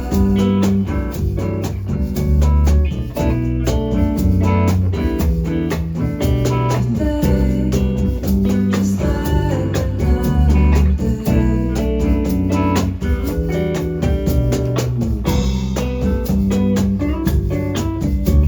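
A band playing an instrumental passage of an acoustic song: guitar with bass and a drum kit keeping a steady beat, no vocals.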